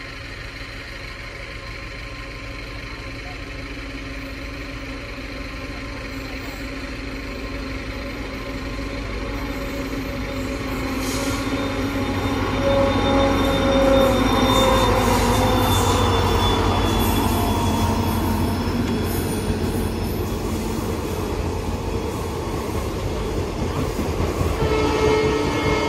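WDP4D diesel locomotive approaching and passing at speed, its engine growing steadily louder to a peak about halfway through, with a steady tone that drops in pitch as it goes by. Passenger coaches then roll past, their wheels rattling and squealing on the rails.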